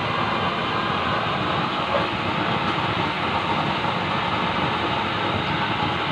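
Homemade used-oil burner stove running with a forced-air blower: a steady rushing noise of the flame and blown air, without letup.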